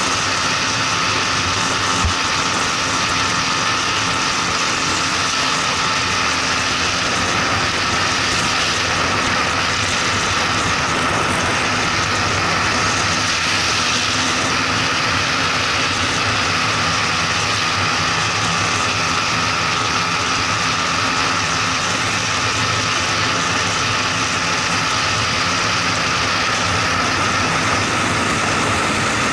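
Motorcycle engine held at steady high revs while cruising at speed, under heavy wind rush on a bike-mounted camera.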